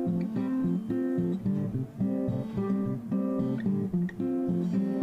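Background music: a plucked and strummed guitar playing a rhythmic pattern of chords.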